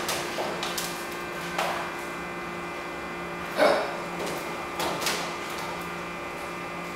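Steady electrical hum, with a few short knocks and rattles from a barred gate as a small puppy jumps up against it. The loudest knock comes about three and a half seconds in.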